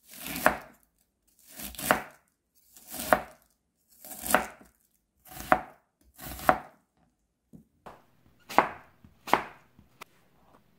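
Chef's knife slicing cabbage and onion on a plastic cutting board in slow, single strokes about once a second, each cut ending in a sharp tap of the blade on the board. The last few strokes are lighter.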